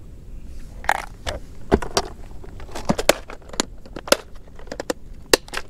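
Irregular clicks and light crackles of plastic fishing tackle being handled up close: a soft-plastic lure package and a tackle box.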